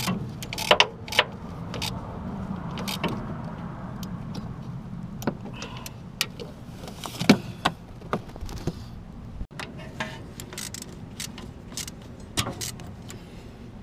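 Irregular metallic clicks and clinks of a ratchet and socket working a bolt as the power steering rack is bolted back in, with a sharper knock a little past halfway, over a steady low hum.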